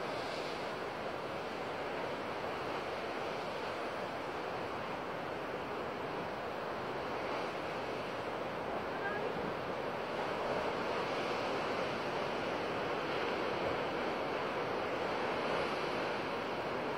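Ocean surf breaking and washing over rocks, a steady rushing wash that grows a little louder in the second half.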